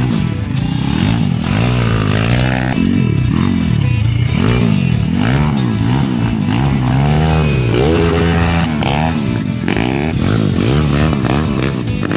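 YCF 150 pit bike's single-cylinder four-stroke engine revved up and let fall again and again while the bike slides through a dirt turn. The pitch rises and drops about once or twice a second.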